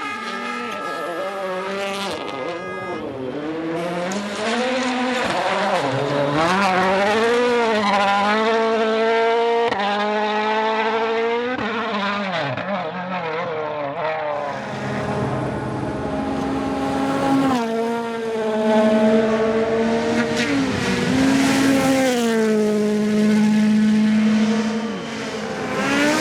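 Rally car engines revving hard, the note climbing and dropping over and over as the cars shift up through the gears and lift for corners, with a few sharp cracks and some tyre skid noise.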